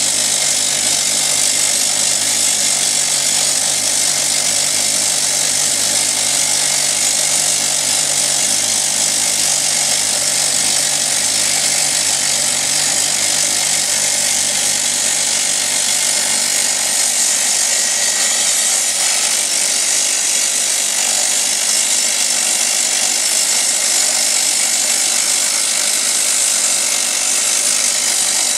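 Drillcom RD32 rock drill percussion-drilling a 70 mm hole into hard granite with a button bit: a loud, steady, dense din that stays unchanged throughout. A lower hum underneath drops away about halfway through.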